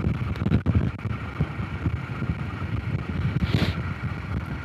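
Honda CRF250 Rally's single-cylinder four-stroke engine running at low, uneven revs while the bike rides over a gravel track. A brief hissing rush about three and a half seconds in.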